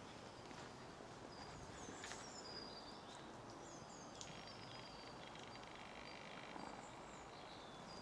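Faint songbirds singing: short, high whistled notes that slide downward, repeated throughout, and a dry, buzzy trill from about four seconds in, over a steady hiss of background noise. A soft click about two seconds in.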